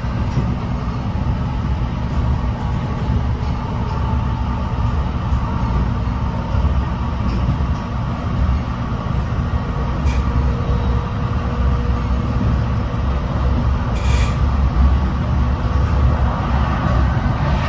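Interior ride noise of an NJ Transit Multilevel passenger coach running at speed: a steady, heavy low rumble of wheels on the track, with a faint steady whine and two brief sharp clicks, about ten and fourteen seconds in.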